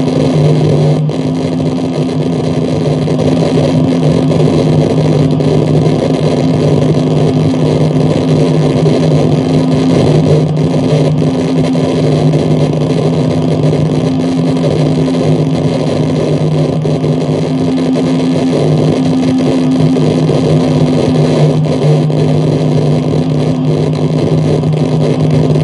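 Harsh noise wall: a loud, dense, unchanging roar of distorted electronic static over a steady low drone.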